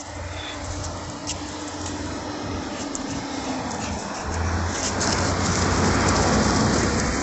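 A car passing by on the street: its tyre and engine noise grows steadily and is loudest near the end.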